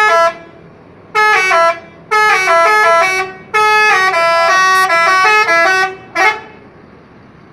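Telolet horn of a Rajawali Citra Transport bus, a multi-tone bus horn playing a melody. It sounds a short toot, then longer phrases whose pitch steps up and down, and ends with one more short toot about six seconds in.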